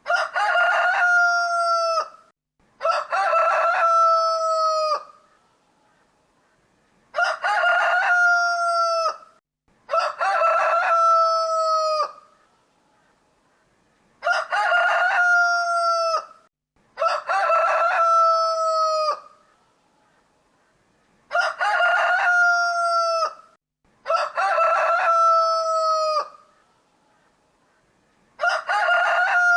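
Rooster crowing over and over: about nine loud crows, each about two seconds long, coming in close pairs with quiet gaps between the pairs.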